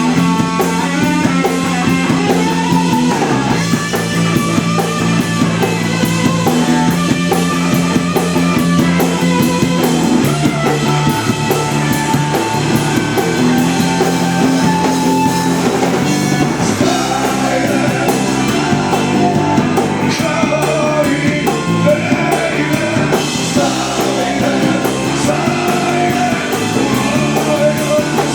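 Rock band playing live: electric guitar, bass and drum kit, with singing.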